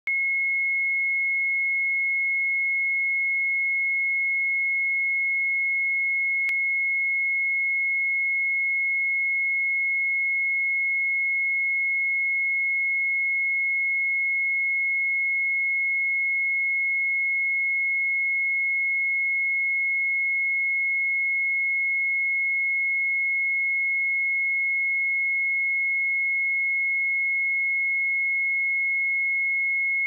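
A pure 2171 Hz sine-wave test tone, held steady at one pitch.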